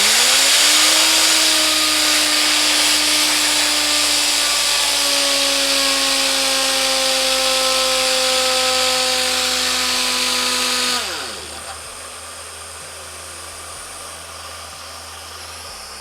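Pneumatic orbital sander spinning up with a rising whine and a strong hiss of compressed air. It runs steadily for about eleven seconds, flushing cleaner and dirt out of its air motor through the exhaust into a rag, then winds down with a falling whine, leaving a softer air hiss.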